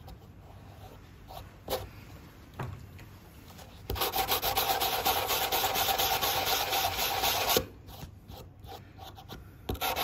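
Sandpaper on a cork sanding block rubbed fast back and forth along the edge of a windsurf fin, roughing a filled repair back to the fin's outline with 180 grit. A few light strokes at first, then steady, rapid scrubbing from about four seconds in, a short pause, and scrubbing again near the end.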